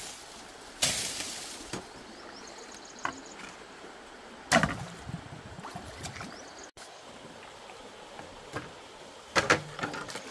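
A few sharp knocks spaced several seconds apart, with two close together near the end, over a steady background hiss.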